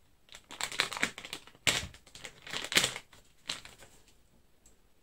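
Clear plastic bag around a resin bottle crinkling as gloved hands handle it to get it open: a string of crackly rustles, loudest about two and three seconds in, fading out in the last second or so.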